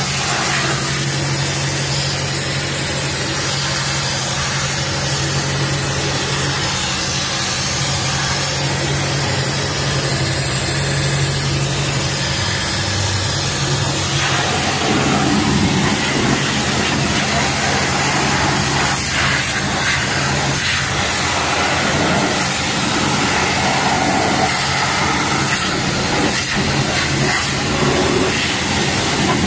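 Car-wash pressure-washer wand spraying a jet of water into a car's engine bay: a steady, loud hiss over a constant low hum, changing in texture about halfway through as the spray moves.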